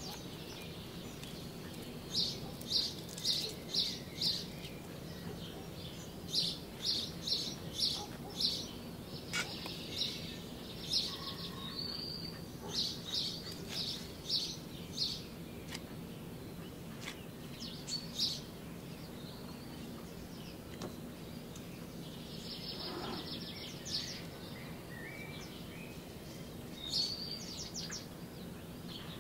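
A bird chirping in repeated short runs of about five quick high notes, with pauses between runs, over a steady low background hum.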